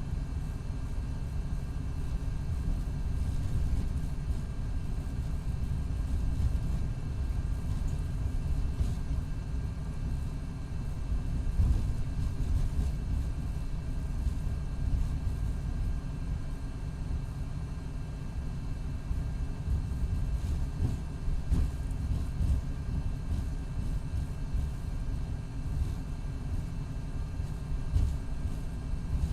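Cummins ISX12 diesel engine of a 2019 MCI D4500CT coach running with a steady low rumble. The bus's Allison B500R automatic transmission is failing.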